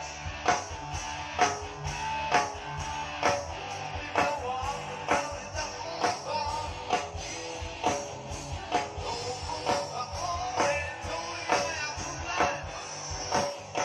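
A rock band playing through loudspeakers, with a drum hit about once a second under guitar and a melody line.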